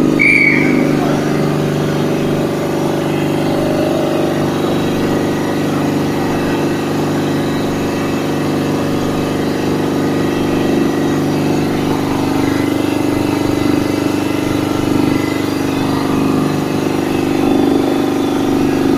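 Air-cooled reciprocating air compressor, driven by an electric motor with a flywheel fan, running steadily under test with a constant hum.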